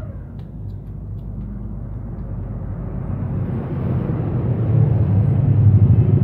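Low rumble of a motor vehicle engine, growing steadily louder over the last few seconds.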